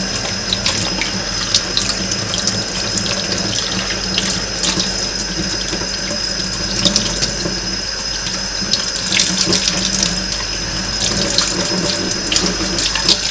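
Kitchen tap running into a stainless steel sink, the stream splashing over hands as they peel squid tentacles under it, with small irregular splatters throughout.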